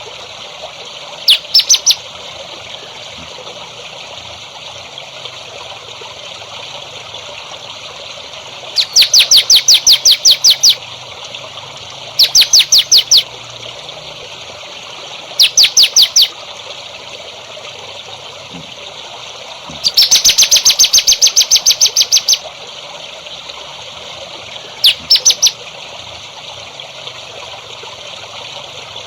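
A songbird calling in short bursts of rapid, evenly repeated sharp high notes, about six bursts of one to two seconds each, over steady trickling water.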